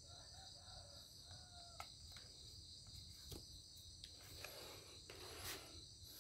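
Near silence: a faint, steady high-pitched insect chorus, with a few soft clicks.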